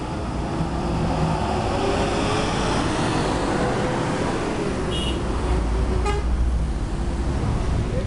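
Coach buses driving past with diesel engine and tyre noise; a deep engine rumble swells about five seconds in as one passes close.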